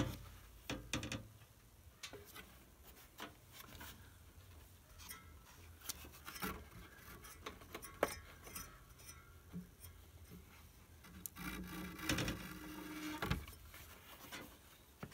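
Handling noises as an RV furnace's blower motor and its plastic housing are worked loose by hand: scattered clicks, taps and plastic and metal rubbing, with one sharp click about halfway and a longer stretch of scraping and rattling about three-quarters of the way through.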